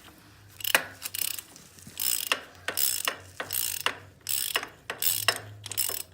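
Ratchet socket wrench clicking in a series of about ten short strokes, backing out a brake caliper mounting bolt on an ATV's front hub.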